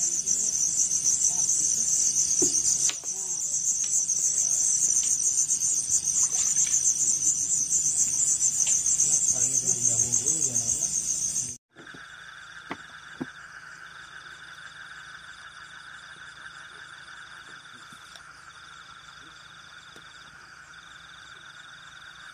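Insects chirring in a loud, high-pitched chorus. About halfway through it cuts off abruptly and gives way to a much quieter, steady, lower-pitched drone.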